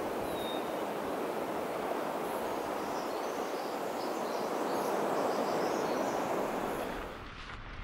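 Steady rush of moving water, swelling a little and then cutting off abruptly about seven seconds in.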